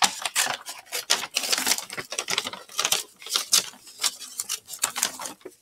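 Stiff brown paper grocery bag crinkling and rustling in irregular crackles as it is cut with scissors and handled.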